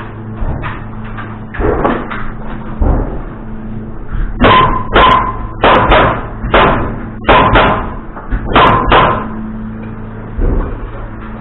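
Hammer striking nails into framing lumber: a few lighter knocks, then about eight hard, ringing blows in quick succession in the middle of the stretch.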